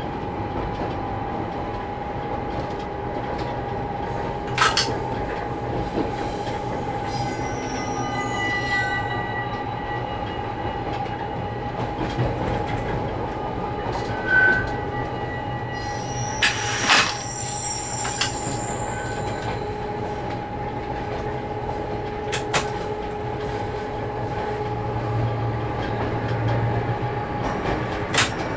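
Cab noise of a moving Siemens diesel locomotive: steady running noise with a constant whine, and a few sharp knocks from the wheels on the track, the loudest about two-thirds of the way through. A brief high beep sounds about halfway.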